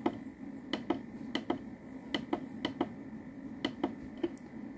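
Plastic push button on an SRNE solar charge controller clicked over and over, each press a quick double click, about one press every three-quarters of a second, stepping a charging-voltage setting down.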